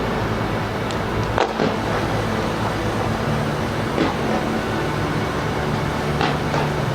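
A few sharp firework bangs, about 1.5, 4, 6 and 6.5 seconds in, over a steady loud din of traffic and city noise.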